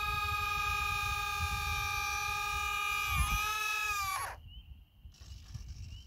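Electric retractable landing gear of an E-flite P-51 foam model plane cycling up: a steady whine from the small retract motors that wavers about three seconds in and winds down in pitch about a second later as the gear and doors close.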